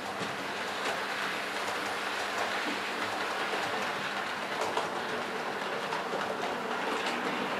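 00 gauge model train, a locomotive hauling coaches, running along the layout's track: a steady rolling rumble with faint clicking of the wheels over the rail joints.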